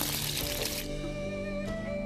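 Peeled boiled quail eggs sizzling in a little hot oil in a pan. The sizzle cuts off abruptly just under a second in, leaving background music.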